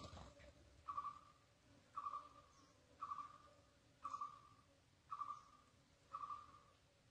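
A bird's short hooting call, repeated steadily about once a second, with a brief thump right at the start.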